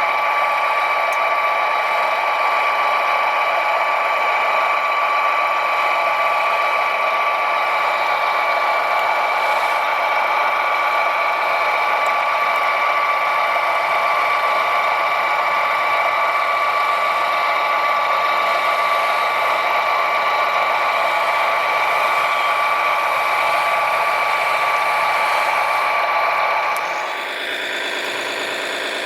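Steady high whine of a radio-controlled model machine's small electric motor and gearing running continuously. Near the end the whine changes and drops slightly in level.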